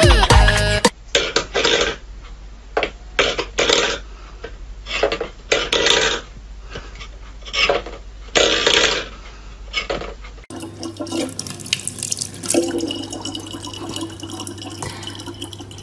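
Guitar music ending within the first second, then a run of short, irregular clattering bursts near a stainless steel pet bowl. From about ten seconds in, a thin stream of water runs from a gooseneck dispenser spout into a plastic bottle over a steady low electric hum.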